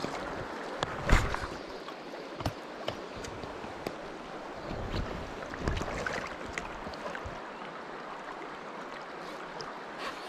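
River current flowing and rippling around a wading angler, a steady rush of water. A few sharp knocks and clicks cut through it, the loudest about a second in.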